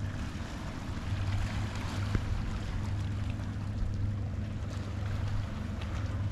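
Steady low drone of boat engines on the lake.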